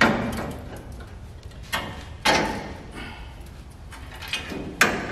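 Rusted sheet-steel runner on a 1963 IH Metro-Mite step van being wrenched loose by hand: a few metallic clanks and scrapes, loudest at the start and about two seconds in, with another near the end.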